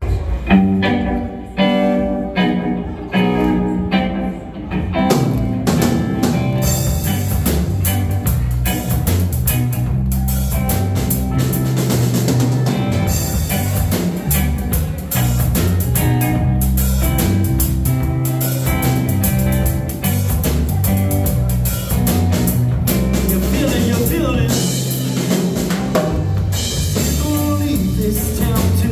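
Live rock band playing an instrumental passage on electric guitar, bass guitar and drum kit. It starts sparse and fills out about five seconds in, when cymbals join and the full band plays on steadily.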